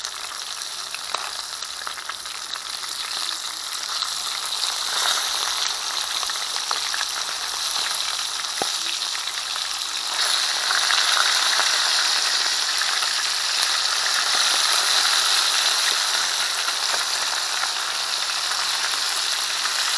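Small whole fish sizzling as they fry in hot cooking oil in a frying pot, with a few light taps of a metal fork turning them against the pot. The sizzle grows louder about halfway through.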